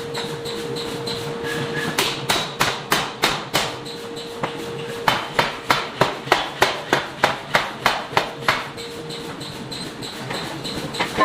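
Air forging hammer pounding hot metal in two quick runs of evenly spaced blows, about three to four a second, with a steady machine hum between the runs.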